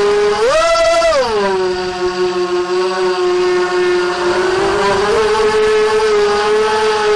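ZMR250 quadcopter's brushless motors and propellers whining steadily, heard from a camera on the quad. About half a second in, a throttle punch sends the whine sharply up in pitch for under a second before it drops back. The pitch edges up slightly again around the five-second mark.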